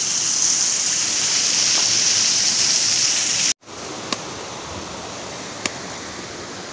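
Loud, steady rush of a waterfall. About halfway through it cuts off abruptly and gives way to quieter flowing river water, with a few sharp clicks.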